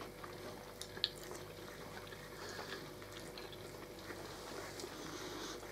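Quiet eating sounds: chewing, with small clicks of forks against plates and one sharper click about a second in.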